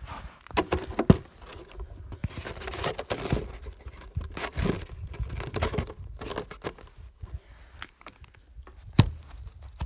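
Footsteps crunching and scraping in snow on a frozen lake, in irregular bursts, with two sharp knocks, one about a second in and one near the end.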